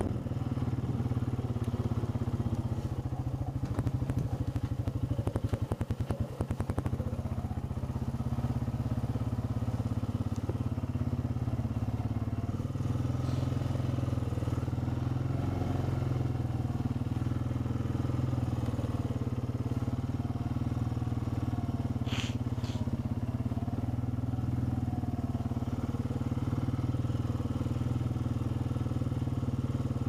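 Small off-road vehicle's engine running at a steady speed, heard from the rider's position. A stretch of rattling comes a few seconds in, and one short high squeak comes about two-thirds of the way through.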